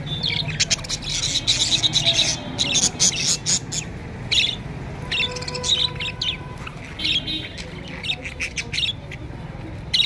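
A flock of budgerigars chattering together: a dense, continuous stream of short chirps and squawks, coming in quick bursts of rapid calls.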